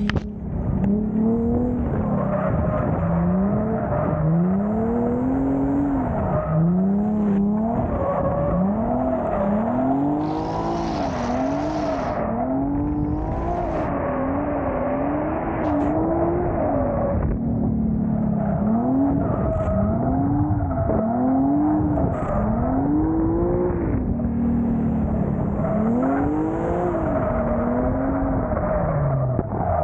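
Nissan 370Z's V6 engine revving up and falling back over and over while drifting on track, each rise lasting a second or two. There is a hiss for about two seconds, about ten seconds in.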